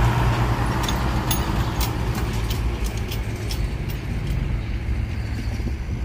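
Heavy diesel engine of earthmoving machinery (dump truck or bulldozer) running steadily with a low drone that eases slightly after the first few seconds, with a scattering of sharp clicks and knocks over it.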